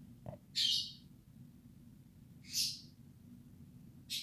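Small birds chirping: three short, high-pitched calls about two seconds apart, over a steady low hum.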